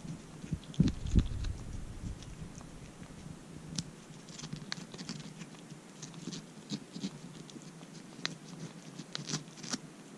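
A kitten licking a lickable cat treat from a squeeze tube and the fingertip holding it: irregular small wet clicks of its tongue and mouth. A couple of low thumps come about a second in.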